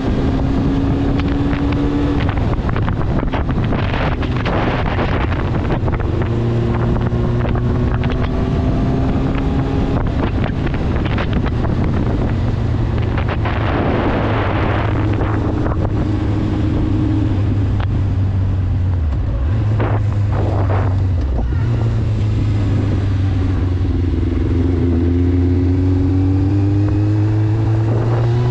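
Kawasaki ZX-9R's inline-four engine cruising at steady revs, with gusts of wind buffeting the helmet microphone. The revs dip briefly a little past the middle and climb near the end as the bike accelerates.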